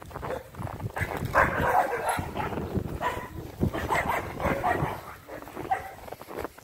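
American XL bully dogs barking and whimpering in short, irregular bursts, with footsteps crunching through snow.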